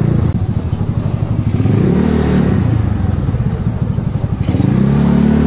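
Motorcycle engine running while riding on the road, its engine note rising twice as it accelerates: about two seconds in and again near the end.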